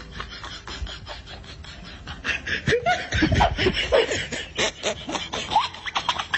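A person laughing and snickering, starting about two seconds in, while two cats scuffle and bat at each other.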